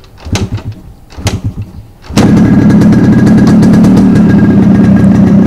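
Yamaha RX100's two-stroke single-cylinder engine being kick-started cold on choke after standing a week. The first two kicks give only short bursts that die away. On the third kick, about two seconds in, it catches and runs on steadily and much louder.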